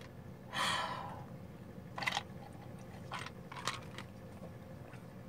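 A man sipping from a paper cup: a short, breathy slurp about half a second in, then a few faint clicks and small mouth noises.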